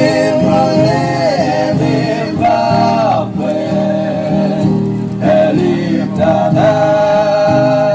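A group of Marshall Islands singers singing together in harmony, holding long notes that slide from one pitch to the next, over strummed acoustic string accompaniment.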